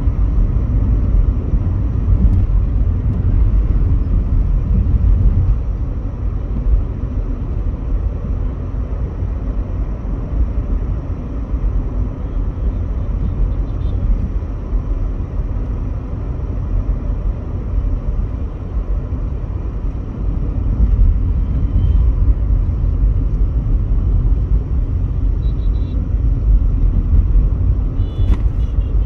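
Volkswagen Polo GT driving on the road, heard inside the cabin: a steady low rumble of engine and tyre noise.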